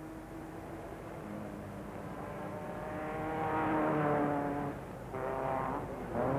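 1930s Grand Prix racing car engines passing at speed one after another. Each engine note climbs and then drops as its car goes by, and the loudest pass comes about four seconds in.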